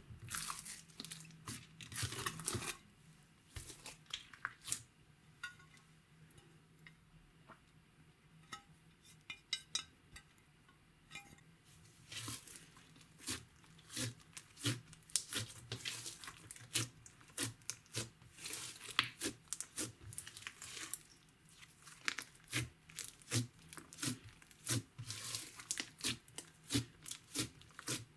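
Slime being kneaded and stretched by hand, giving quick wet pops and clicks. The pops come thick at the start, go quieter for several seconds, then pick up again from about the middle on.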